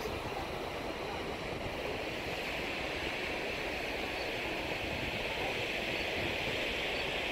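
Steady rushing of water, growing slightly louder.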